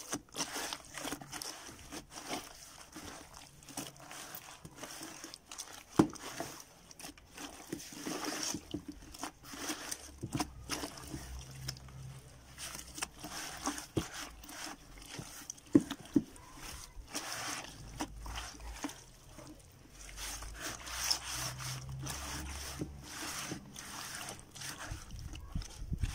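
Wet cement slurry squelching and sloshing as rubber-gloved hands knead and soak old cloth in a plastic bucket, with a few sharp clicks along the way.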